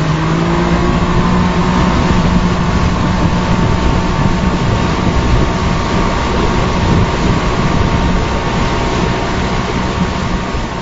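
Motorboat engine running steadily at speed, a constant hum under a rushing noise of water and wind, easing slightly near the end.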